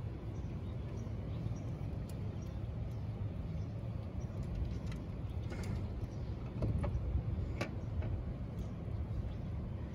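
Steady low rumble of city street traffic, with a few faint clicks scattered through it.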